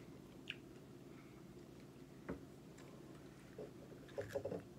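Quiet room tone with a few faint, isolated clicks, then a cluster of soft, short squishy sounds near the end from eating and handling food at the table.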